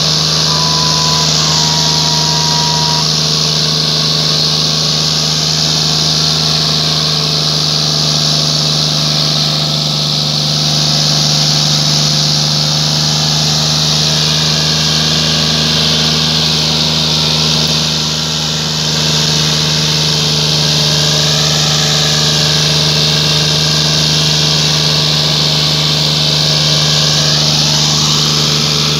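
John Deere 5039D tractor's three-cylinder diesel engine running steadily under heavy load while it drags a tillage implement through dry soil. There is a constant hiss over the engine note.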